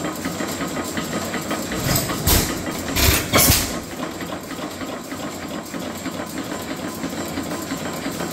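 Lutz portable benzine engine, a horizontal engine with twin flywheels, chugging away with a fast, even clatter. A few louder thumps stand out about two to three and a half seconds in.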